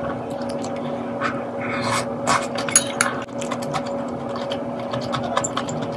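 Eating sounds: a metal spoon and chopsticks clinking and scraping against an earthenware pot and a small plate, with scattered light clicks and a few louder ones about two seconds in. A steady low hum runs underneath.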